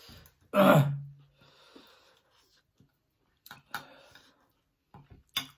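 A loud, short, breathy vocal noise about half a second in, trailing into a brief hum, from a person eating very spicy food. A few sharp clicks of eating and a fork follow later.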